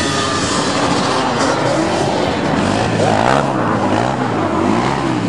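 Small off-road vehicle engines running on the ice. In the second half, one engine's pitch rises and falls several times as it is revved on and off.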